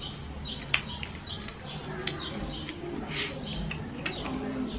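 A small bird chirping over and over, short high chirps that fall in pitch, about two a second. A few sharp clicks cut in, the loudest just under a second in.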